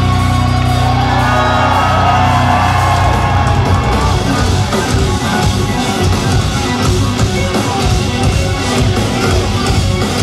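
Instrumental progressive metal played live and loud through a concert hall's PA: extended-range electric guitars and drums, recorded from among the audience. Low notes are held for about the first three seconds, then fast, dense riffing with drums takes over, with crowd shouts and whoops over the band.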